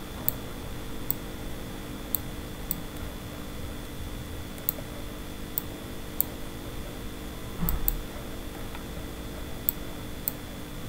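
Computer mouse clicking sharply at uneven intervals, roughly once a second, as images are scrolled and changed, over a steady electrical hum with a low bump about three-quarters of the way through.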